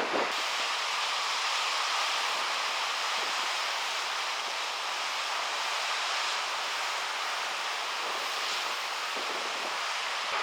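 Steady rushing hiss of wind and sea, even throughout, with almost no low rumble.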